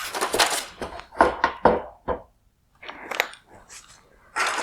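Hard plastic scraping, then a series of sharp clicks and knocks, as a plastic headlight bezel is worked loose and slid out of the lens housing.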